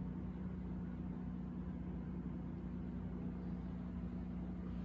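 Steady low hum with a faint rumble underneath, unchanging throughout.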